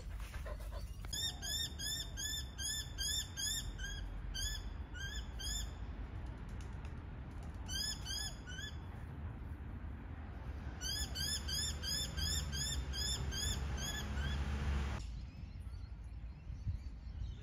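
A bird calling in bouts of quick, repeated short notes, about four a second, each the same rising-then-falling chirp, over a low background rumble. The calls stop about fifteen seconds in.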